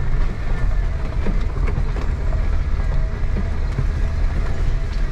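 Jeep running slowly in low range over a rocky trail: a steady low engine and drivetrain rumble with scattered knocks and rattles from the loaded vehicle bouncing over rocks.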